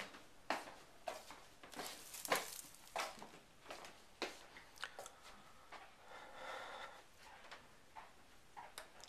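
Faint, irregular soft footsteps and small knocks of someone walking slowly across a wooden-floored room, with light handling noises.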